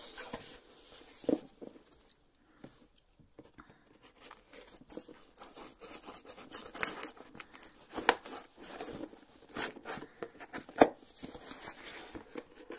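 Cardboard shipping box being worked open by hand: scattered tearing, scraping and crinkling of the paperboard with a few sharper snaps, sparse at first and busier from about five seconds in.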